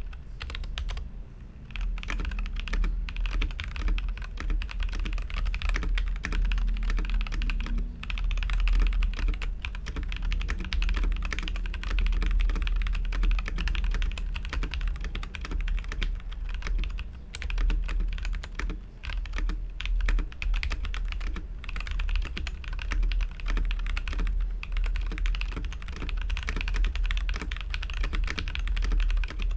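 Typing on a Feker IK75 Pro V3 mechanical keyboard with JWK Lagoon tactile switches and Tai Hao keycaps: a continuous clatter of keystrokes, with a steady low hum underneath.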